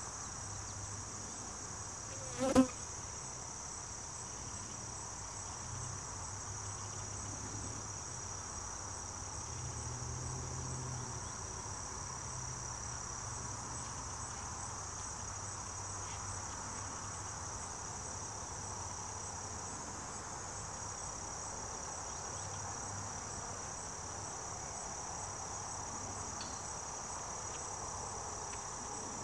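Insects singing in a steady, unbroken high-pitched drone. A single sharp tap sounds about two and a half seconds in, the loudest moment, over a faint low hum.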